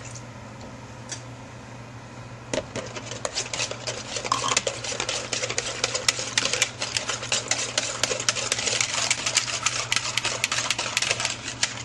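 Wire whisk beating eggs and milk in a white enamel pot, with the wires rapidly clicking against the pot's sides. The whisking starts about two and a half seconds in.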